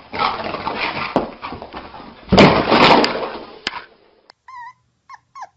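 Two small dogs scuffling in play: a rough noisy rustling that gets louder for about a second halfway through. After a cut, a small white puppy gives a few short, high whimpers.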